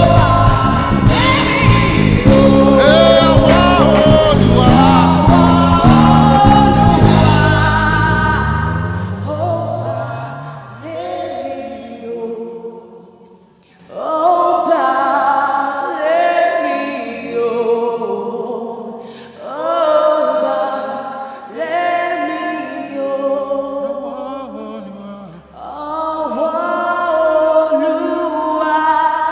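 Gospel worship music with singing. A full band with deep bass plays for about the first eight seconds, then falls away, leaving voices singing long, held phrases over a soft low accompaniment.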